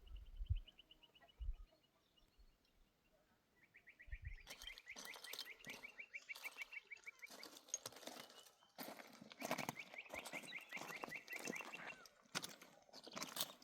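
A bird's rapid trill of short, high, evenly spaced notes, given in three runs with gaps between them. A scatter of irregular knocks and rustles joins in from about four seconds in.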